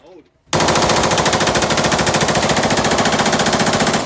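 Rapid automatic gunfire: one continuous burst of evenly spaced shots, starting about half a second in and cutting off abruptly near the end.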